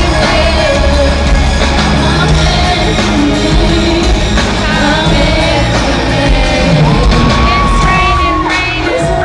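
Live pop concert music in an arena, heard through the hall's echo: a female singer over a loud band with heavy bass, holding one long note about seven seconds in, with crowd yells and whoops.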